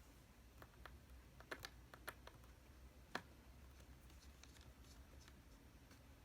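Faint, scattered small clicks of a little screwdriver working the screws out of a laptop's LCD display panel, with the loudest click about three seconds in.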